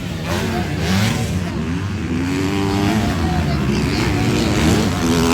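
Several motocross motorcycle engines revving, their pitches rising and falling and overlapping.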